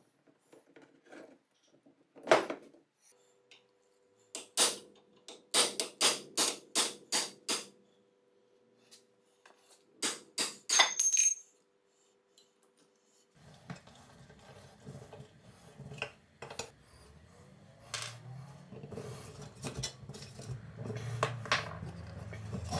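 Sharp metallic taps of a hammer on a pin punch driving a pin out of the cast-iron gear hub of an antique meat chopper: one tap, then a quick run of about eight, then four more. Later, softer scraping and knocks as the chopper's metal drum is handled on a wooden workbench.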